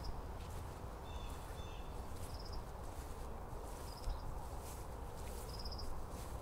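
Outdoor ambience: a steady low rumble with short high chirps, each a quick run of pulses, repeating every second and a half or so. A pair of thin whistled tones sounds about a second in.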